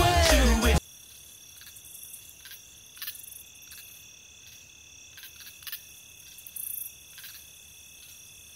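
Hip-hop music with singing cuts off abruptly within the first second. After it comes a faint, steady, high-pitched whine made of several even tones, with a few faint ticks scattered through it.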